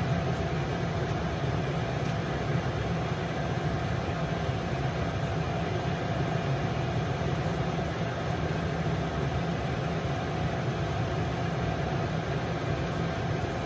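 A steady low machine hum with a faint steady tone above it, unchanging throughout.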